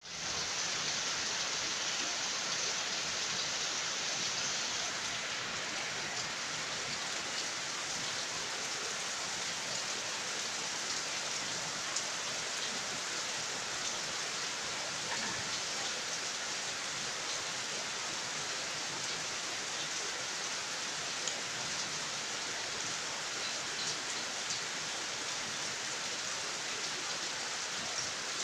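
Heavy rain falling steadily: an even, continuous hiss with a few louder single drop hits now and then.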